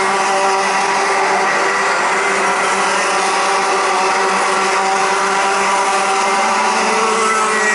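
Several Rotax Senior karts' 125 cc two-stroke engines running at race speed around the circuit, their overlapping engine tones making a steady drone.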